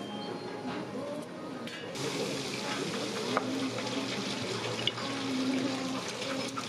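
Tempura deep-frying in hot oil: a steady sizzling hiss that swells up about two seconds in, with two brief light clicks in the middle.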